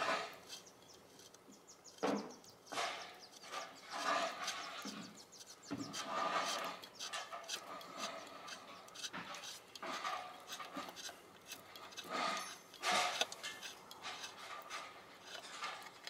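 Irregular light clicks and rubbing as a bolt is unscrewed by hand from an outboard motor's metal lower-unit housing, with fingers scraping against the casing.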